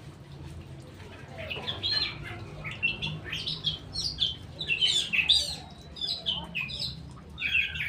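Straw-headed bulbul (cucak rowo) singing a string of loud, rich whistled and warbled phrases, starting about a second and a half in, over a steady low hum.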